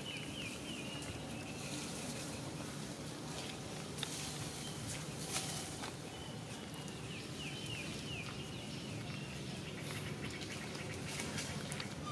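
Outdoor natural ambience: a steady low background rumble with short runs of quick, high, falling chirps recurring every few seconds, and a couple of faint clicks or rustles in the middle.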